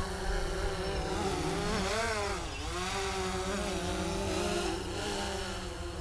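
DJI Phantom 3 Pro quadcopter's motors and propellers buzzing as it flies hard at full stick. The whine swoops up and then down in pitch about two seconds in as the drone banks, then settles back to a steady tone.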